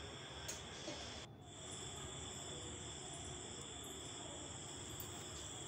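Faint, steady high-pitched chirring of crickets, with a brief break about a second in.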